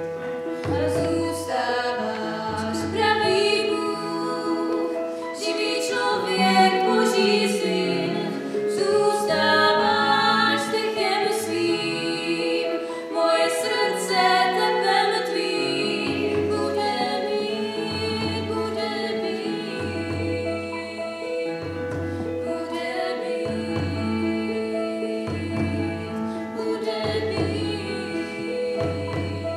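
A female choir sings a Christmas carol, accompanied on a Casio electronic keyboard. A low bass note repeats about once a second through the second half.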